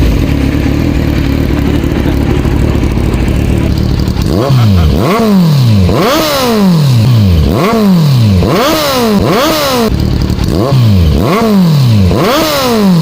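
Sport motorcycle's inline-four engine with an aftermarket exhaust running steadily, then revved in a series of quick throttle blips, about one a second, from about four seconds in, each one rising in pitch and falling back.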